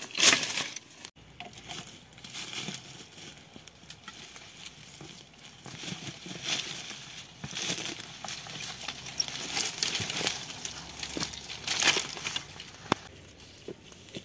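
Dry sticks and brittle undergrowth crackling and rustling as they are handled and trampled while firewood is gathered, with irregular snaps and clicks. A loud sharp crack comes right at the start.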